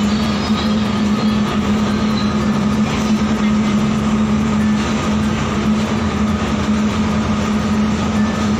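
Ferry's diesel engines running, heard as a steady drone with a constant hum that does not change.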